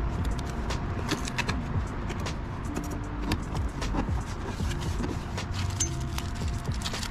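Scattered plastic clicks and light knocks as a red LED golf-cart tail light is handled and pressed into its opening in the rear body panel, over a steady low rumble.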